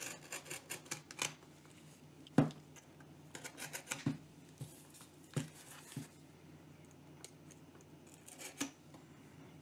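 Small cardboard mailing box being slit open with a craft knife and handled: quick scratchy cutting and tearing strokes, and handling knocks on the cardboard, the loudest about two and a half seconds in.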